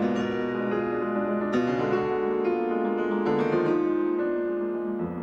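Slow, gentle piano music, with new chords struck about every one and a half seconds and each one left to ring.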